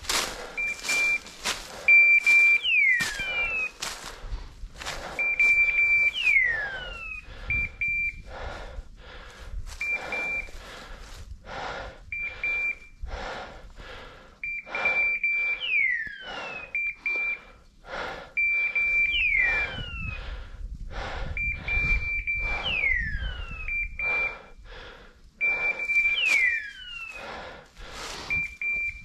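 A hunting dog's beeper collar sounding repeated high beeps, broken every few seconds by a pair of falling, hawk-like electronic screeches, over footsteps and rustling through brush.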